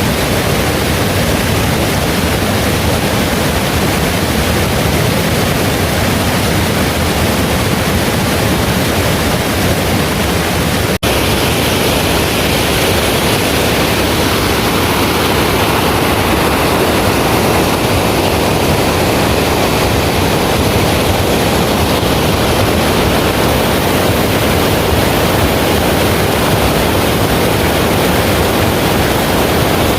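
Heavy rain pouring steadily, a loud, dense, even hiss. The sound drops out for an instant about eleven seconds in, then carries on.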